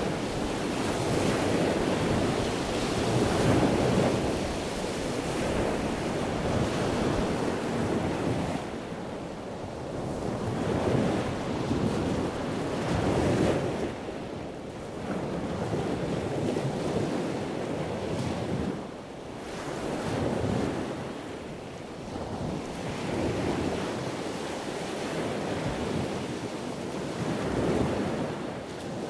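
Surf: waves breaking and washing in, the rush swelling and fading every few seconds, with wind.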